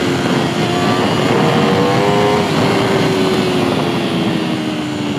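2017 Aprilia RSV4 RF's V4 engine pulling hard under acceleration, heard onboard over heavy wind rush. The revs climb, an upshift drops the pitch about two and a half seconds in, and the pitch then sags slightly in the next gear.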